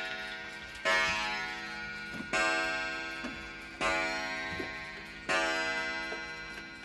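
Oak gingerbread shelf clock striking the hour on its coiled wire gong, one stroke about every one and a half seconds, each ringing out and slowly dying away, with the clock ticking faintly between strokes.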